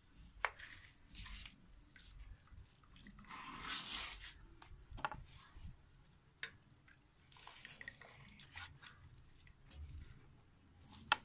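Boiled corn cobs and a metal pot being handled: scattered sharp clicks and knocks, with a short rush of wet noise about three seconds in, as cobs are lifted out of the hot water and set on a plate.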